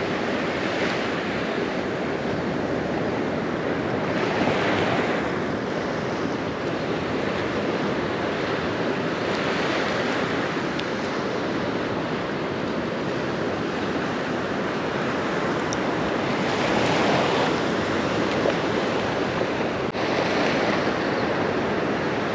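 Gulf surf breaking on a sandy beach, a steady wash of waves that swells as each one comes in every few seconds, with wind.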